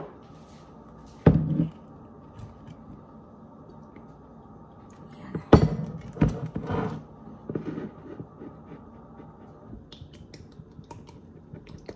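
Sharp knocks and clicks of kitchen items being handled on a counter over a steady low hum. A loud knock comes about a second in, and a cluster of clicks and knocks comes around the middle.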